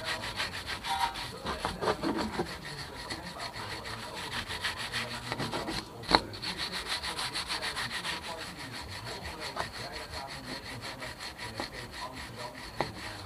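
A stiff wooden-backed brush scrubbing back and forth over a car's rear brake caliper in rapid, even strokes, cleaning dirt and rust off it. There is one sharp knock about six seconds in.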